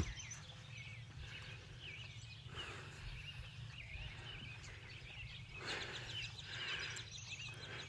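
Faint outdoor evening ambience: many small birds chirping over a low, steady rumble.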